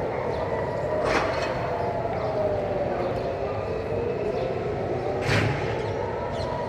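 Civil-defence sirens wailing in a slow rise and fall, several at slightly different pitches overlapping out of step, sounding for a scheduled siren test. Two short bursts of noise cut through, about a second in and near the end.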